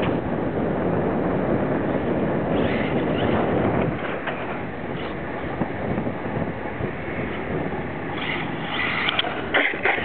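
Wind rushing over the microphone while a radio-controlled HPI Firestorm 10T truck with a brushless motor drives on a concrete path, with sharp clattering near the end as the truck flips onto its roof.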